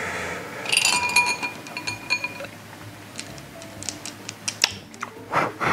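A clink against an empty glass bowl, with the glass ringing on for a second or two, then a few small clicks and light rattles. Near the end come two short hard puffs of breath blown out through the mouth, an attempt to blow off the burning sourness of Warheads candy.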